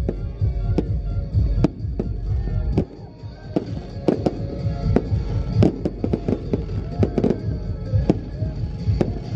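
Aerial fireworks display: an irregular run of sharp bangs from shells bursting overhead, coming closer together from about halfway in.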